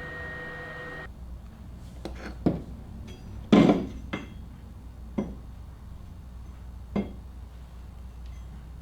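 Scattered metallic clinks and knocks, about six, the loudest a short ringing clank a few seconds in, as the engine mount and its polyurethane insert are handled and set up in a bench vise.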